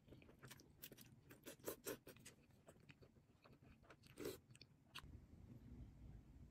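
Faint eating sounds: scattered soft clicks and taps of wooden chopsticks and a wooden spoon against the noodle bowl, with chewing of cold buckwheat noodles, over quiet room tone.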